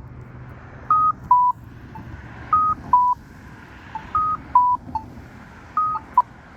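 Polara EN4 accessible pedestrian push button sounding a repeating two-note beep, high then low, about every second and a half, over a faint tick about once a second. This is the crosswalk signal in its wait phase. A single sharp click comes near the end.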